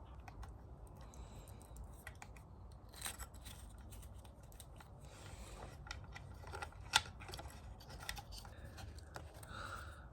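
Faint handling noises of electrical wiring work: small clicks and scraping of wires and small parts being worked by hand, with one sharper click about seven seconds in.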